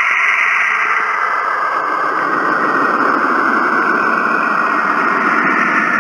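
Saturn's electromagnetic radio emissions converted into sound, played back from a recording: a steady rushing, static-like hiss with a whistling band in the upper mid-range that settles a little lower after about a second. It sounds like Saturn is basically screaming through space.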